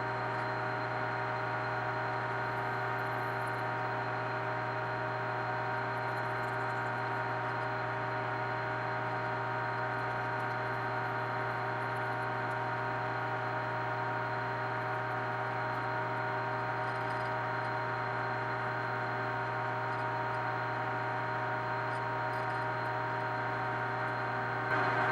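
Metal lathe running at a steady speed, a steady hum with a whine of several fixed pitches, while drilling a hole in a workpiece.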